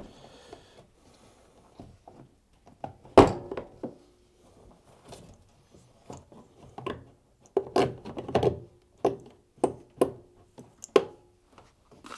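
Hard plastic tumble dryer fan cover knocking and clicking against the dryer's housing as it is twisted and pushed into its slots. One heavier thunk comes about three seconds in, and a quick run of knocks follows in the second half.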